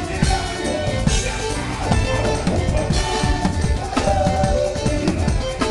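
Drum kit played live with a band, heard close from behind the kit: a busy pattern of kick and snare strokes with cymbal hits over the band's music.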